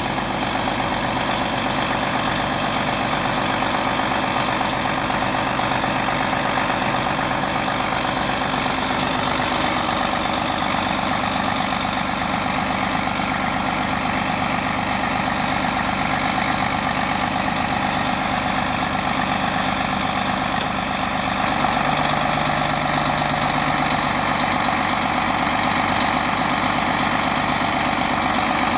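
Cat 349E excavator's C13 inline-six diesel engine running steadily. A deeper low hum joins briefly a little over two-thirds of the way through.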